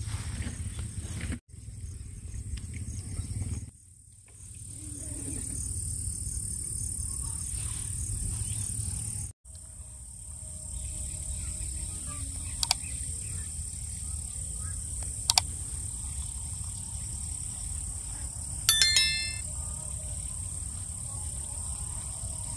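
Steady high-pitched drone of insects in the background, breaking off briefly a few times. Two sharp clicks and, near the end, a short bright ding, the sound effects of an on-screen like-button animation.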